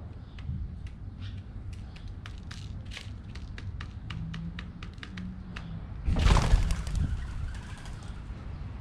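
Pigeons pecking at seeds on the ground: irregular sharp taps, a few a second. About six seconds in, a loud rushing burst lasts about a second, then the taps stop.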